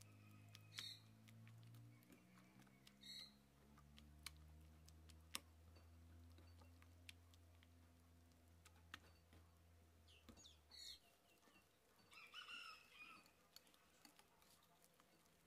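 Near silence, with faint scattered clicks of a wire whisk against a glass bowl as thick mascarpone cream is beaten by hand. A faint low hum stops about eleven seconds in, and a few faint short bird calls come through, the longest near the end.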